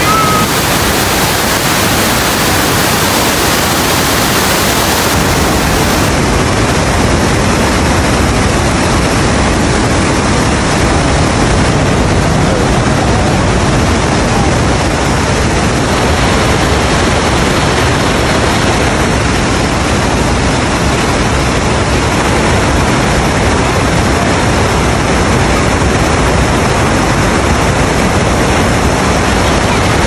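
The Rhine Falls, a large river waterfall, heard close up: a loud, steady rush of water crashing over rocks.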